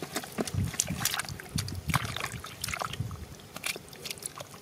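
Hands squelching and sloshing through soft wet mud and shallow muddy water, a quick string of short wet slaps and squelches.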